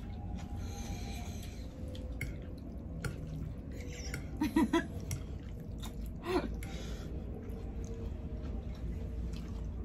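Close-miked eating sounds from people eating noodles: chewing and wet mouth noises with faint soft clicks. There are two short, louder mouth sounds, about four and a half and six seconds in.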